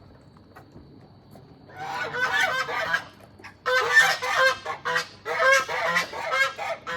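Domestic goose honking in three bouts of rapid calls, starting about two seconds in.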